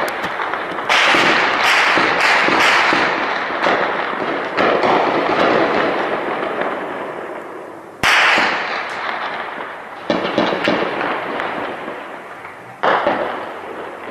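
Heavy gunfire echoing across a town: a rapid string of shots in the first few seconds, then single loud reports about eight, ten and thirteen seconds in, each trailing off in a long rolling echo.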